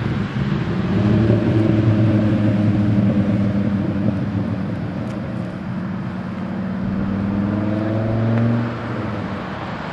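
A motor vehicle passing on the road, its engine a steady drone that slowly drops in pitch and fades about eight and a half seconds in, over traffic noise.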